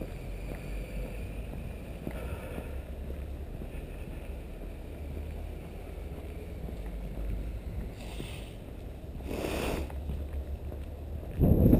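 Steady low rumble of wind buffeting the camera microphone outdoors in winter. A brief rush of noise comes about nine and a half seconds in, and a much louder burst near the end.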